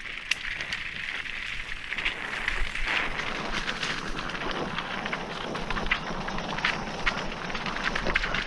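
Mountain bike rolling fast over loose gravel and rock: tyres crunching, with stones and bike parts rattling in many sharp clicks. It grows louder and fuller about three seconds in.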